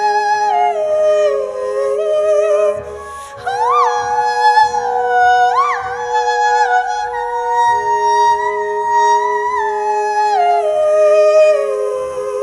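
Wordless female singing over a double bass: a voice that slides between held notes and flips quickly upward a few times, with steady lower tones sounding beneath it.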